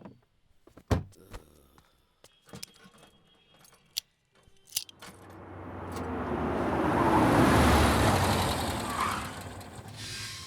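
A motor vehicle drives by, its noise building for several seconds to a peak about three-quarters of the way through and then fading away. Before it come a few scattered sharp clicks and knocks.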